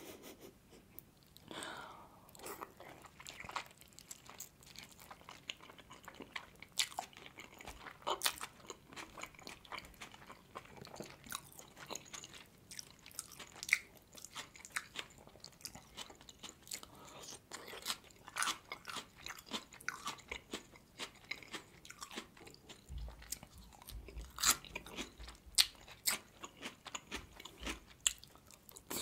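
Close-miked chewing of juicy steamed meat dumplings (manti): soft, wet mouth sounds with many short, sharp clicks.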